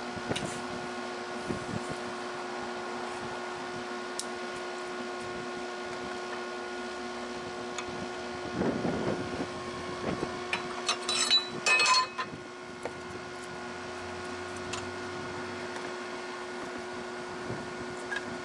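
Steady electric hum of a blower fan on the chimney of a miniature steam locomotive, drawing the fire while it is being lit. About nine to twelve seconds in, a burst of metal clinks and knocks from the firebox door and fire irons.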